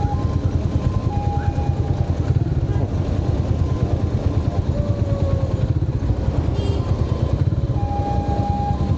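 Motorcycle engine running steadily as it is ridden through city traffic, a continuous low rumble. A few short, steady higher tones come and go over it.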